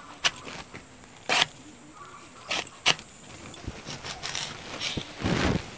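Crisp cuts of a boti, the fixed curved Bengali blade, slicing through a thick water taro (pani kochu) stem. There are about five short, sharp cuts, then a longer, louder one near the end.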